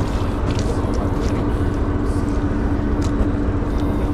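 An engine running steadily, a constant hum over a low rumble.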